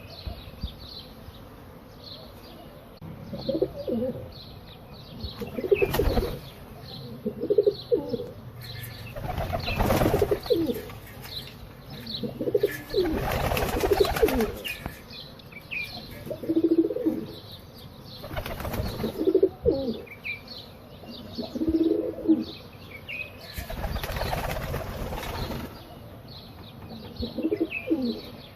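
Pigeons cooing in short low calls, with several bursts of wing flapping lasting a second or two each. Small birds chirp faintly in the background.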